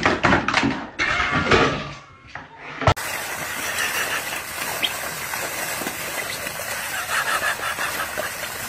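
Knocks and scuffling for about three seconds. Then comes steady gushing and splashing of water as a dog clambers over the side of an inflatable pool, its weight pushing the wall down so water spills out over the edge.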